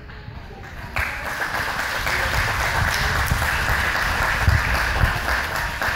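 An audience applauding, breaking out suddenly about a second in.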